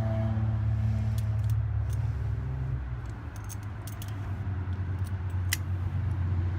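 Small metallic clicks and clinks of hand tools working on a heater hose fitting, over a steady low hum.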